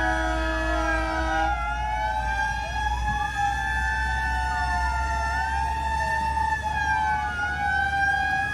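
Several fire truck sirens wailing at once, their rising and falling tones overlapping out of step, over a steady low hum. A set of steady held tones stops about one and a half seconds in.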